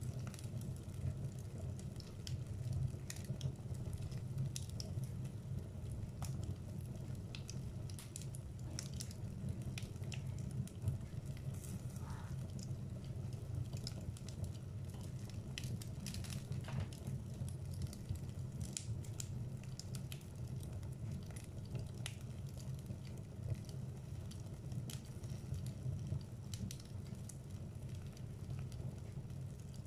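Wood logs burning in a fireplace: a steady low rush of flame with scattered, irregular crackles and pops.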